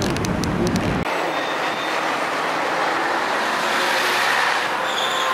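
Street traffic noise. About a second in, the low rumble cuts off abruptly, and a vehicle passing close by builds up to its loudest about four seconds in.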